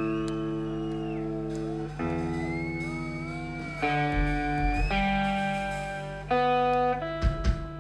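Loud electric guitar through an amplifier, playing sustained chords that change every second or two, with feedback tones gliding above them. Near the end come a few low thumps.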